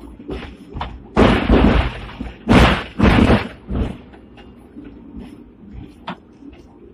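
Moving Hong Kong double-deck tram heard from the driver's cab: two loud clattering, banging bursts of the car body and running gear, one starting about a second in and the next a second later, among lighter knocks.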